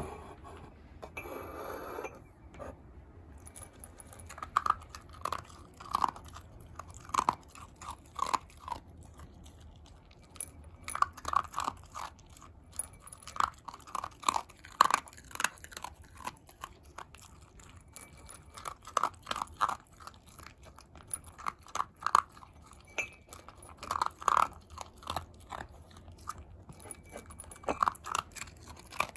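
Shiba Inu crunching and chewing dry dog food: runs of quick, sharp crunches that come in bursts of a few seconds with short pauses between them.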